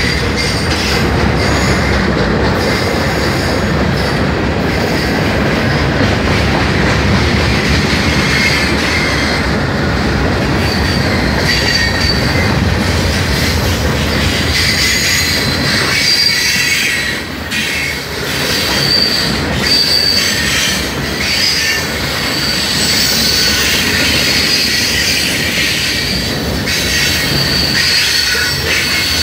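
Freight cars of a long mixed manifest train rolling past close by: a loud, continuous rumble of steel wheels on rail with high-pitched wheel squeal over it. The low rumble eases briefly a little over halfway through.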